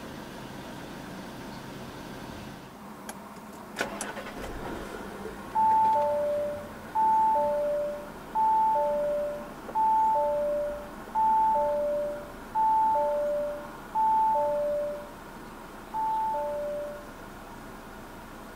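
Audi A5 Sportback's dashboard warning chime: a two-note ding-dong, high then low, repeated eight times about a second and a half apart, warning that the drive system is still active and the ignition should be switched off. Before it, a faint engine idle and a few clicks.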